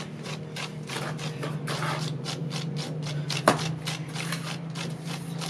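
Small hand tool scraping and rubbing over cement render in quick repeated strokes, about three a second, shaping a faux-rock texture. One sharp tap about three and a half seconds in, over a steady low hum.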